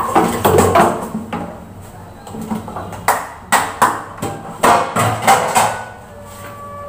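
Objects being handled at a kitchen sink: a run of sharp clatters and knocks, with a brief ringing tone, like struck metal, near the end.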